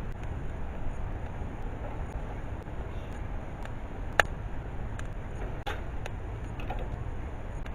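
Steady low rumble with a few sharp clicks or snaps scattered through it, the loudest about four seconds in.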